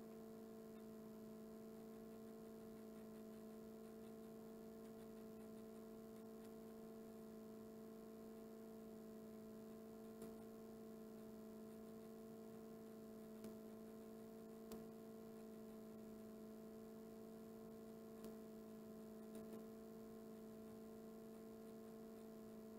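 Near silence: a faint steady room hum with a few soft clicks.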